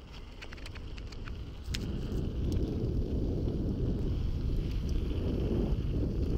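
Wind buffeting the camera microphone over the rumble of mountain-bike tyres rolling fast on a gravel track, with a few sharp clicks in the first two seconds; the rumble gets louder about two seconds in and stays so.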